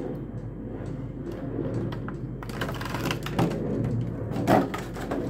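Clear plastic blister packaging crackling and clicking as a model is worked out of it by hand, a dense run of small plastic clicks that grows busier in the second half.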